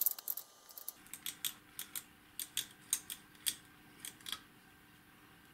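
Light, irregular metallic clicks and ticks from handling an opened aircraft altimeter's gear-and-synchro mechanism, about a dozen of them, stopping about four and a half seconds in.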